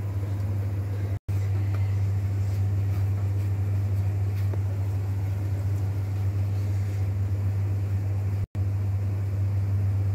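A steady low hum that cuts out to silence twice for an instant, about a second in and about eight seconds in.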